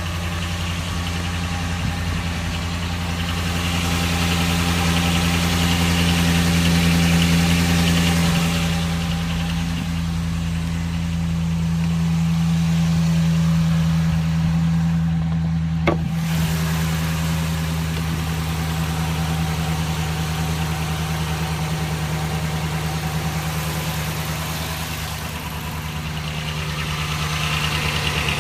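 2012 Dodge Ram 1500's 4.7-litre V8 idling steadily with a knock that the owner cannot place. A single sharp click sounds about halfway through.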